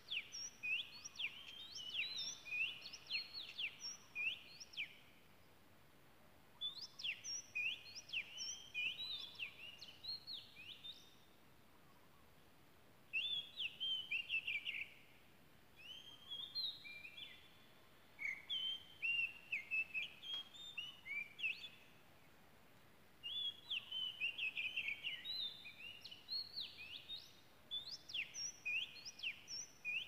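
Oriental magpie-robin singing: quick, varied high whistles and trills in phrases of several seconds, separated by short pauses.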